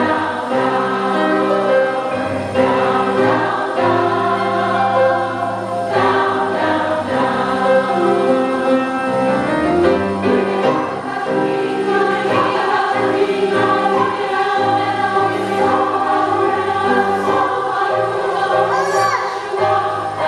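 Women's chorus singing in several parts with piano accompaniment, a continuous song with held, moving notes.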